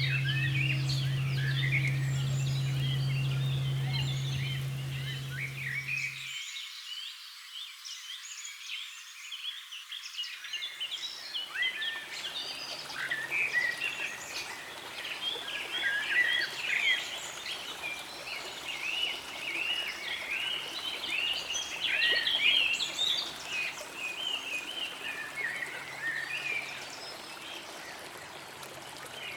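Low, steady hum of a large struck bell ringing out, with a slowly pulsing overtone, cutting off abruptly about six seconds in. Throughout, a dense chorus of short, high chirping calls from small animals, which grows busier after the bell stops.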